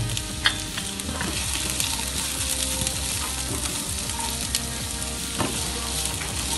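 Chopped onions frying in hot oil in a kadai, sizzling steadily, while a spatula stirs them, with a few short clicks of the spatula against the pan.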